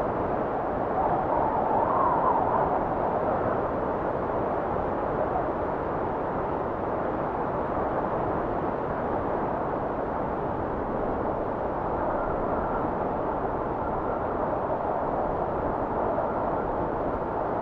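Wind blowing steadily, swelling in a gust about two seconds in and rising again near the end.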